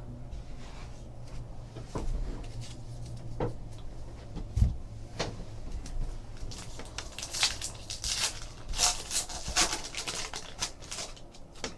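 Trading cards being handled and flipped through: scattered light clicks and short rustling swishes, with a steady low hum underneath.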